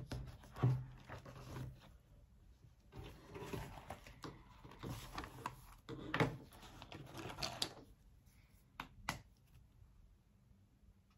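Book and paper handling at a desk: pages rustling and a few soft knocks as a book is handled and a spiral notebook set down, then two short clicks near the end as a highlighter is uncapped.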